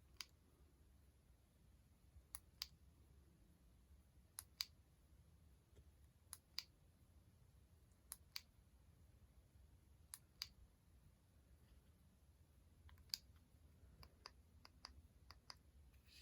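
Near silence with a faint low hum, broken by sharp clicks that come in pairs about every two seconds, then a quicker run of single clicks near the end.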